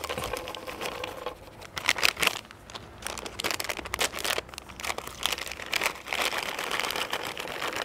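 Bag crinkling as roasted, salted macadamia nuts are shaken out of it, the nuts dropping onto a wooden cutting board in scattered clicks and small clatters.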